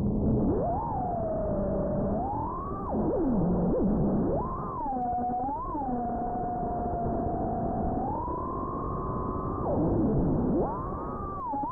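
FPV quadcopter's motors and propellers whining, the pitch sweeping up and down with the throttle: sharp rises, held tones and drops, over a steady rush of wind and propeller noise.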